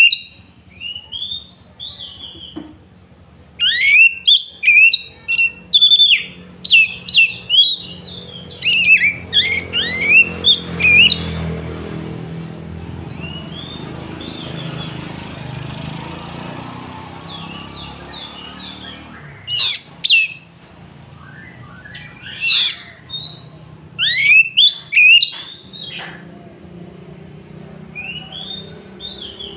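Oriental magpie-robin singing: bursts of rapid, loud whistled phrases sweeping up and down, separated by short pauses, with a few sharp single notes about two-thirds of the way through. A low rumble swells and fades in the middle.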